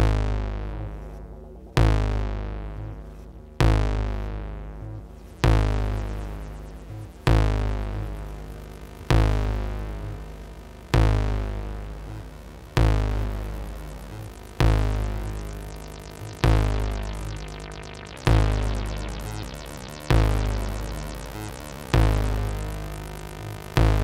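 Electronic music from a DJ mix: a deep synth bass hit repeats about every two seconds, each one dying away before the next.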